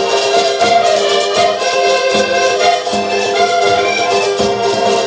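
Portuguese folk ensemble playing live: several accordions sound a tune in full sustained chords over a small plucked string instrument, with a drum and percussion keeping a steady, regular beat.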